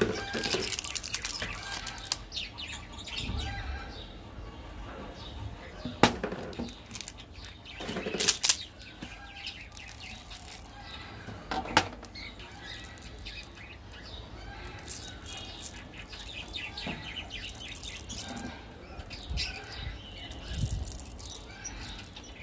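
Plastic wrapper of a chocolate-coated wafer bar crinkling and crackling as it is handled and torn open, with sharp louder crackles about six and twelve seconds in.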